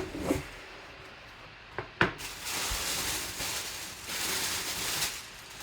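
Packaging being torn open and handled: a sharp snap at the start and two more around two seconds in, then about three seconds of steady rustling, like plastic wrap being pulled off an autographed jersey.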